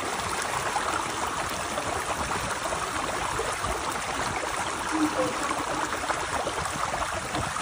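Floodwater gushing and bubbling up around a street manhole cover, a steady rush of water: the sewer is overflowing in a flash flood.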